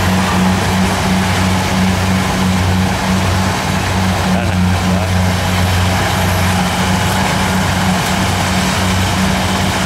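Kubota DC70 combine harvester's diesel engine running steadily under load, a loud even drone with a broad mechanical hiss from the harvesting machinery over it.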